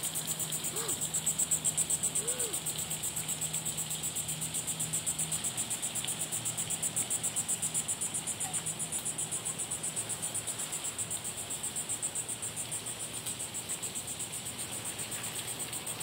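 Insects trilling steadily: a high, rapidly pulsing buzz that runs on unchanged.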